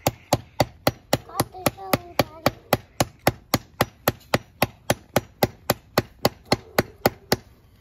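Rubber mallet beating steadily on the steel head of a claw hammer, driving the hammer into hard-packed dirt to make a pilot hole. The sharp knocks come at nearly four a second and stop shortly before the end.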